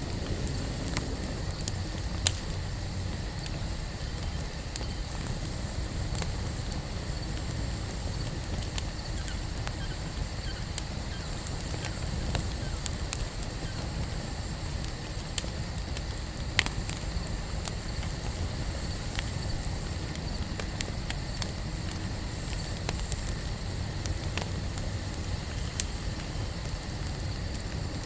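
Wood campfire burning: a steady low rumble of flame with scattered sharp crackles and pops, the loudest about two seconds in, about halfway through and near the end.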